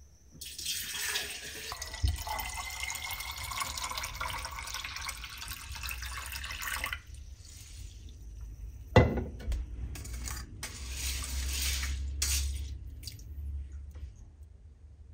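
Rice-washing water pouring from a rice cooker's inner pot into a pitcher, a steady stream lasting several seconds. A sharp knock comes about nine seconds in, and then the water runs again in shorter spells.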